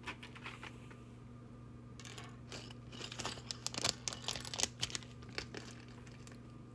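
Mega Construx plastic pieces and their packaging being handled: a run of light crinkling and clicking starting about two seconds in and lasting a few seconds, over a steady low hum.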